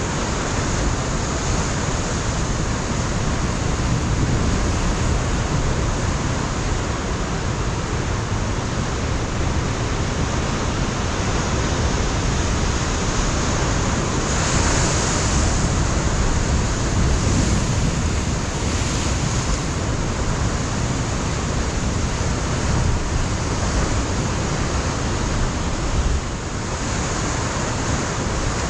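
Ocean surf washing and breaking against a rocky shore, a continuous rushing noise that swells brighter about halfway through, with wind rumbling on the microphone underneath.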